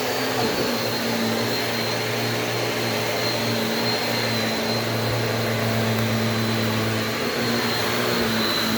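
Shark Navigator DLX upright vacuum cleaner running steadily on carpet, its motor giving a constant hum and high whine over the rush of suction airflow.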